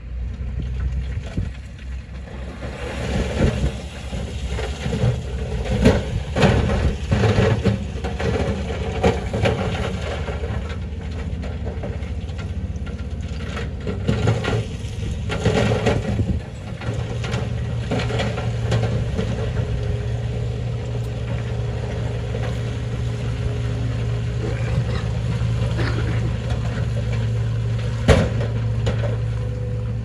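Heavy diesel machinery, a wheel loader pushing stone, running with irregular loud surges and rattling over the first half, then settling to a steady engine drone. One sharp clack near the end.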